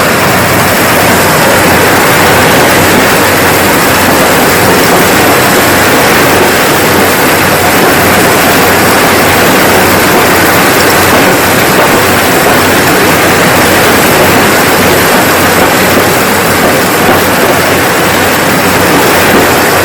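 Kubota DC-70G rice combine harvester running steadily: a loud, dense mechanical noise from its diesel engine and machinery, with a low hum underneath and no letup.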